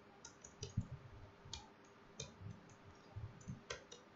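Computer keyboard keys being typed: a dozen or so faint, short clicks at an uneven pace.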